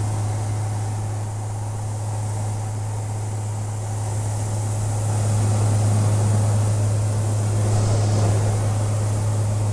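Cabin noise of a Maule single-engine light aircraft in cruise: a steady drone from the piston engine and propeller, with a strong low hum over a wash of air noise, swelling slightly about halfway through.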